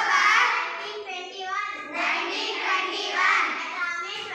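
A group of schoolchildren singing together in unison.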